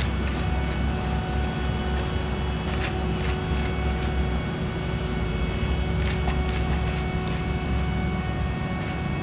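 Heavy diesel paving equipment running steadily with a low rumble, with a few faint scrapes or clicks over it.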